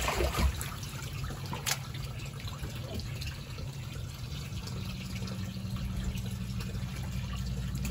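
Shallow water in an inflatable kiddie pool lapping and trickling softly as a child's hands move a toy doll through it, with a few small drips and splashes, the largest right at the start.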